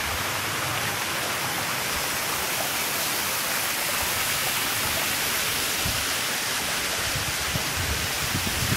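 Steady rushing hiss of a waterfall in full flow, a constant wash of falling water. A few low rumbles come in near the end.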